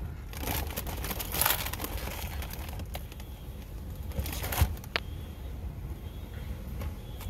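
Packaging crinkling in two bursts, the first about half a second in lasting over a second, the second around four seconds in.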